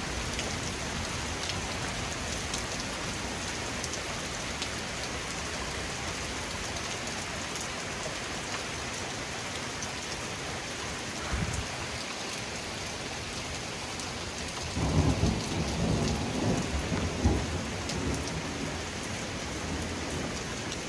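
Heavy rain pouring steadily during a thunderstorm. Thunder gives a short low thud about eleven seconds in, then a crackling, rolling rumble for about three seconds from about fifteen seconds in.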